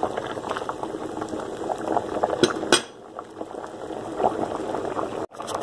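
Rice boiling hard in a pot of water, a busy bubbling and spattering, while a wooden spoon stirs it. Two sharp knocks of the spoon against the pot about halfway through, after which the bubbling is a little quieter.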